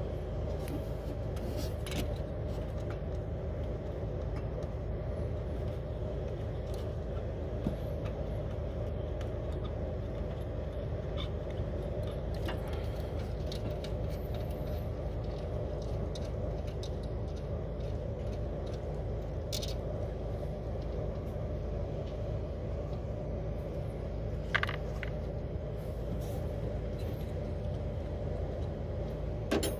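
Steady low drone of an idling vehicle engine, with a few light metallic clinks of a hand wrench on bolts.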